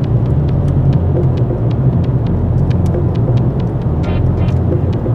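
Car engine and road noise heard from inside the moving car's cabin: a steady low rumble.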